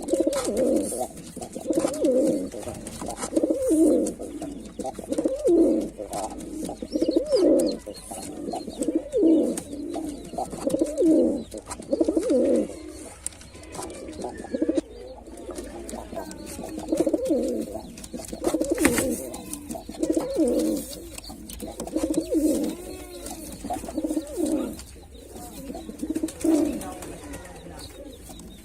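Male domestic pigeon cooing over and over, a low rolling coo repeated every second or two.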